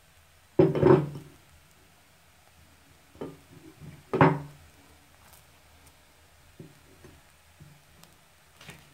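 Kitchen utensils knocking against a metal cooking pot: two loud knocks, about half a second in and again just past four seconds, each with a short ring, among a few lighter taps.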